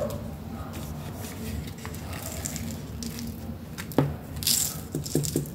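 Loose craft glitter being shaken out of a small container onto paper: light rattling and a short hiss of falling grains, with a sharp tap about four seconds in and a few quick taps near the end.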